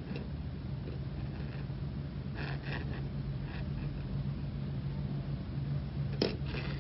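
Steady low hum with faint soft rustles and light ticks of thread being pulled through tatted lace with a fine steel crochet hook, and one sharper click near the end.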